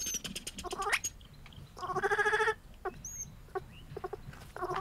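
Baby vervet monkey crying with bleat-like calls: a short rising call about a second in, a longer wavering cry around two seconds in, then a few short yelps.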